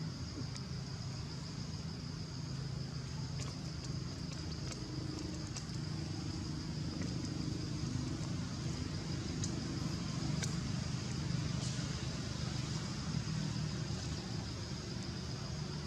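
Steady outdoor background noise: a low rumble of distant road traffic, a continuous high-pitched whine and scattered faint clicks.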